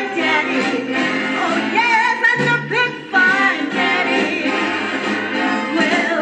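Swing big band playing live, with a pitched melody line moving over the full band.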